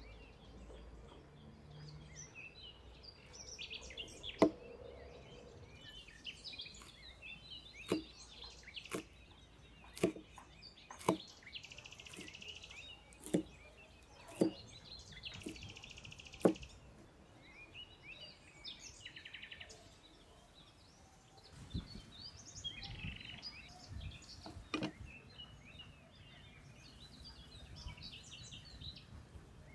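Cleaver chopping chillies on a wooden chopping board: single sharp knocks a second or two apart, in two runs. Birds chirp in the background.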